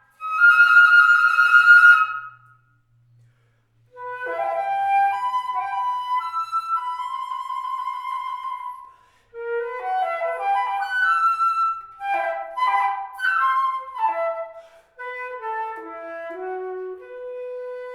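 Solo flute playing a melodic passage with no accompaniment. It opens on a high held note, pauses for about a second and a half, then plays quick running figures and shorter held notes, and ends on a long, lower held note.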